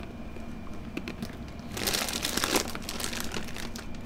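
A snack bag of potato chips crinkling and rustling close to the microphone as a hand digs into it, light at first and then loud and dense from about two seconds in.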